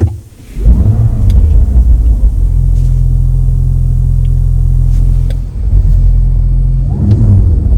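Audi RS 5's twin-turbo V6 starting up about half a second in with a quick rise in revs, then settling into a steady, deep idle. It is blipped twice near the end.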